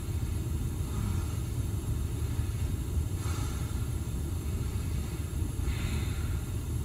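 A steady low rumble, with two soft breaths heard faintly over it, about three seconds in and again near the end, as the pose is held.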